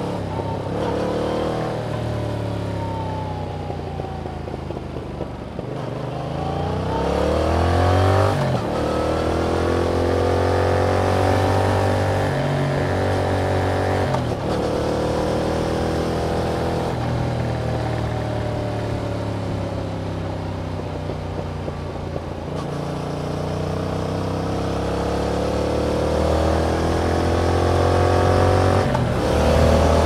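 2021 Yamaha MT-07's 689 cc parallel-twin engine through its stock exhaust, pulling under acceleration with rising pitch. It breaks off briefly at upshifts about 8 seconds in, around 14 seconds and near the end. In the middle the pitch falls slowly as the bike eases off, then climbs again.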